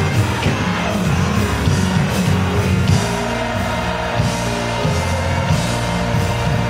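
Large gospel choir singing full-voiced over instrumental backing, with a heavy bass line under the voices and regular high cymbal-like strokes.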